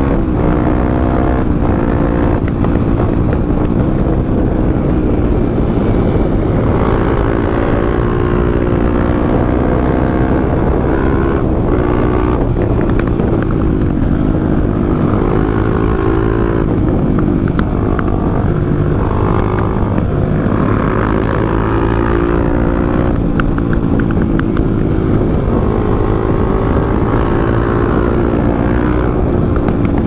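Supermoto motorcycle engine running under way, recorded onboard, its note rising and falling gently with the throttle, over steady wind rush.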